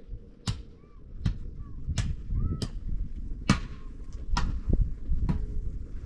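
A steady series of sharp blows, about eight of them, a little under a second apart.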